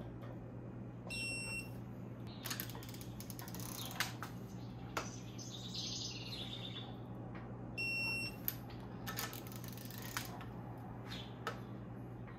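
Digital torque wrench beeping twice, about a second in and again about eight seconds in. Each is a steady high beep just under a second long, signalling that the preset torque has been reached on a cylinder head stud. Short ratchet clicks and tool knocks come in between.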